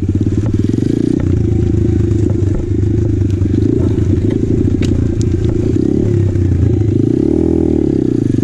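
Apollo RFZ Open 125cc pit bike's single-cylinder four-stroke engine running under the rider while it is ridden along a rough trail, with the revs briefly dipping and picking back up near the end. A few sharp clicks and knocks from the bike going over sticks and roots come about five seconds in.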